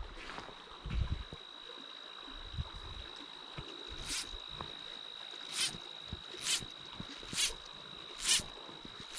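Fly line being stripped in by hand through the rod guides: a short rasp about once a second from about four seconds in, over a faint steady high whine.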